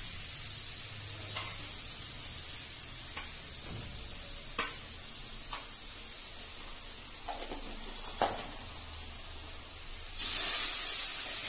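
Spiced gravy of oil, turmeric, chilli and water sizzling steadily in a metal kadai, with a few light clicks of the metal spatula against the pan. About ten seconds in the hiss gets louder as the gravy is stirred.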